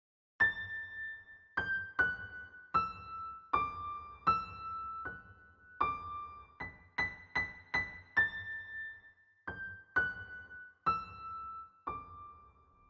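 Background music: a slow melody of single high notes on a piano-like keyboard, one note at a time, each ringing and fading before the next.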